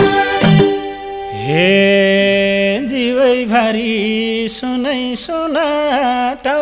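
Live Nepali dohori folk music in a break between sung verses. A drum pattern stops about half a second in. Then one melody line slides up into a long held note and goes on in short phrases with pitch bends.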